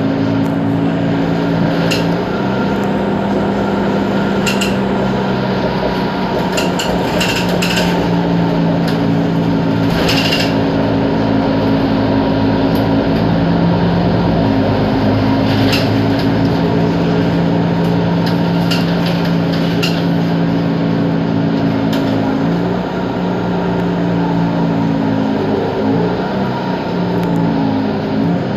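Mercedes-Benz Citaro G C2 articulated city bus running: a steady engine drone that steps up and down in pitch several times, with scattered sharp rattles and knocks, the loudest about ten seconds in.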